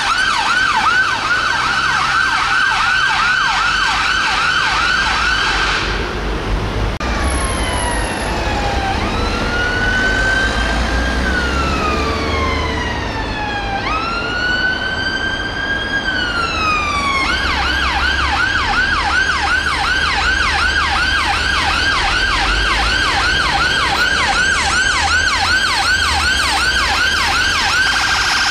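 London Ambulance Service sirens. For about the first six seconds the VW Tiguan response car's siren runs on a rapid yelp. After a break, the Mercedes-Benz Sprinter ambulance's siren runs on a slow wail that rises and falls over a few seconds, then switches back to the rapid yelp about seventeen seconds in. A low engine and traffic rumble runs underneath.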